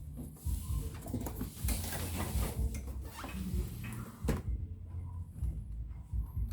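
Small clicks and scraping from hands disconnecting a flat cable on an LED TV's circuit board, with the sharpest click about four seconds in, over a steady low hum.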